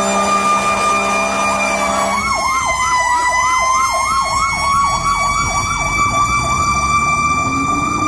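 Fire engine sirens sounding as the engine goes by: a steady high wail throughout, joined about two seconds in by an electronic siren in a fast yelp of about four swoops a second.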